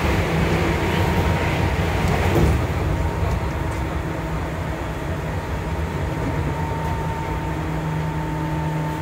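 Seibu 2000 series field-chopper-controlled electric train heard from inside the passenger car while running: wheels on rail and a steady traction-motor hum with a faint high tone. The noise eases a little about two and a half seconds in.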